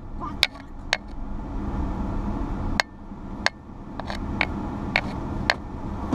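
Low steady road and engine rumble inside a moving vehicle's cabin, with about eight sharp clicks or knocks at uneven intervals, as something in the cabin rattles.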